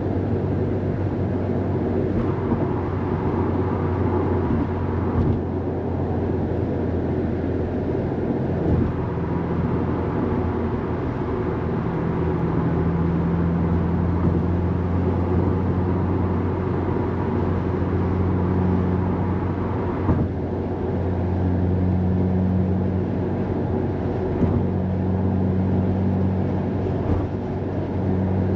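Subaru WRX STI's turbocharged boxer four-cylinder engine and tyre and road noise heard inside the cabin, holding a steady note while cruising.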